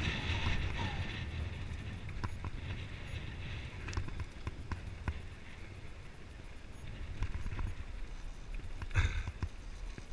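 Mountain bike riding down a dry dirt trail, heard from a camera mounted on the rider or bike: a low rumble of tyres on dirt, with scattered clicks and rattles from the bike jolting over bumps. Wind hiss at the start fades within the first couple of seconds, and a louder jolt comes about nine seconds in.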